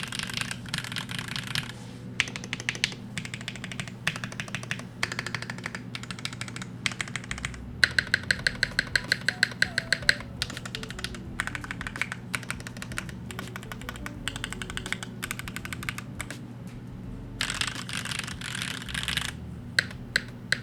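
Typing on a Solar80 top-mount TKL mechanical keyboard with HMX Snow Crash switches: fast bursts of key clacks with short pauses between them. About eight seconds in comes a run of louder, separate strokes, about five a second.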